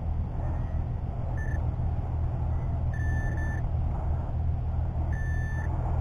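Handheld metal-detecting pinpointer beeping as it is probed in a dug hole, sounding on a metal target in the soil: a short high beep about a second and a half in, then two longer beeps about three and five seconds in. A steady low rumble runs underneath.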